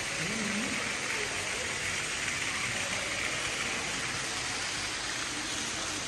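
Steady rushing hiss of falling or running water, even in level throughout, with faint voices in the background.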